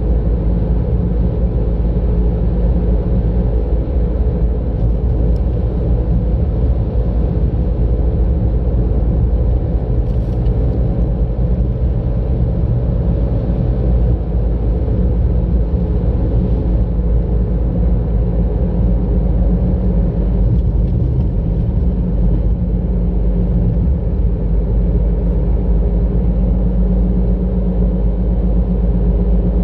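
A car's engine and tyre noise while driving at a steady pace: an even, low rumble with a steady engine hum.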